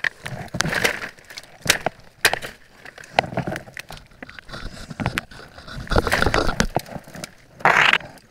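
Twigs and dry brush snapping and rustling as they are pulled aside by hand, with many sharp cracks. Louder bursts of rustling come about six seconds in and again near the end.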